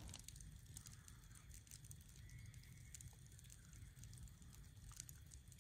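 Faint, sparse crackles and pops from a burning brush pile of land-clearing debris, over a low steady rumble.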